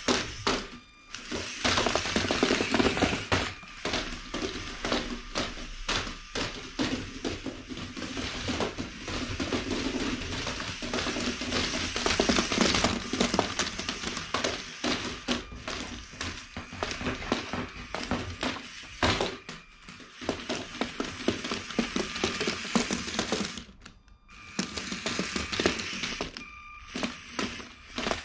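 LEGO Mindstorms Technic walker's plastic feet tapping and clattering on a wooden floor in a quick, irregular patter as its crank-driven legs step, over a steady whir of its electric motors and gears. The sound drops away briefly near the end, then resumes.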